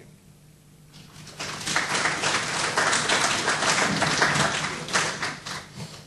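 Audience applauding: many people clapping, starting about a second in, building quickly and tapering off near the end.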